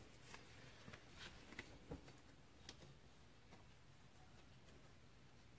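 Near silence with a few faint clicks and light metal taps, as the cylinder is worked down over the piston rings of a 2005 Kawasaki Brute Force 750 engine by hand.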